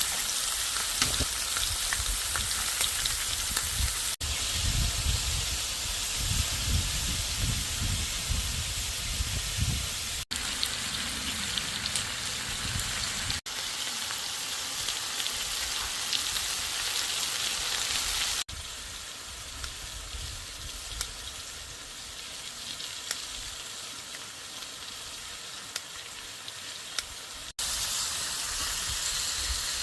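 Steady hissing rush of noise, broken by abrupt changes between short shots, with a low rumble under it for several seconds in the first half.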